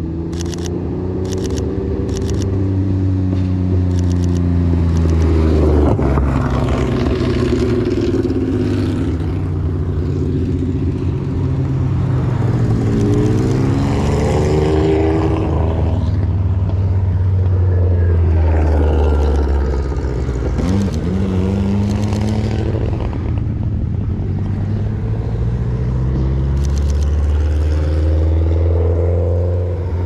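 Classic sports and racing cars passing one after another, engines revving up and dropping away through gear changes as each goes by. A quick run of camera shutter clicks near the start and a few more near the end.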